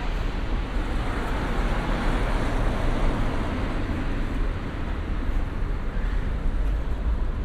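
Steady road traffic on a city street, cars going by with a constant low rumble of tyres and engines.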